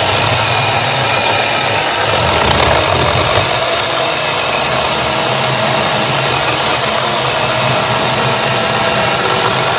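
NaTiddy 21 V brushless battery-powered mini chainsaw running steadily under load, its chain cutting straight through a small log in one continuous cut.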